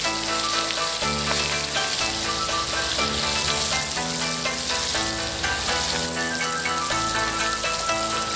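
Whole shrimp deep-frying in a wok of hot oil, a steady sizzling hiss, under background music of held notes that change about once a second.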